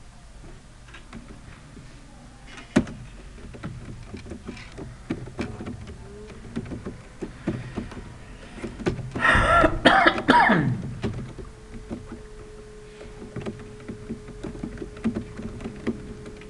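Computer keyboard keys clicking in irregular runs as text is typed, with a single louder cough about nine to ten seconds in.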